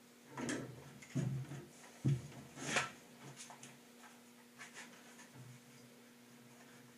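A bar clamp and small wooden blocks being handled and set on a table saw top: several knocks and scrapes in the first three seconds, then lighter clicks as the clamp is tightened on the glued pieces.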